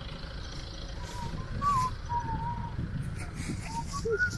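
A person whistling a wandering tune in clear single notes, over a low steady rumble of outdoor noise.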